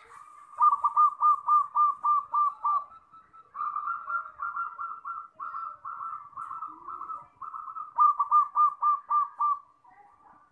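Zebra dove (perkutut) cooing in three phrases: a quick run of clear coo notes, about four a second, then a longer stretch of slower, rougher notes, then another quick run near the end.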